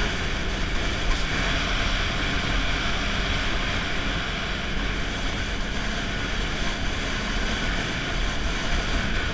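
Snowmobile riding at a steady speed, its engine and track running evenly under a steady rushing noise.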